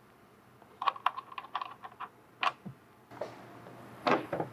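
Irregular light clicks and clatter of hand tools on a tail light's mounting hardware as the two retaining nuts are taken off the studs with a 10 mm deep socket, with a few louder knocks near the end.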